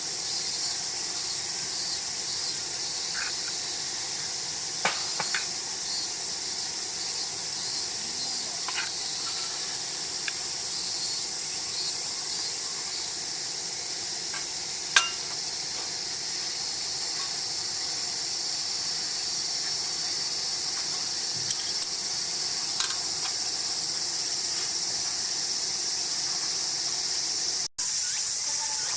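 A steady, high-pitched chorus of insects, with a few short clicks and knocks scattered through it.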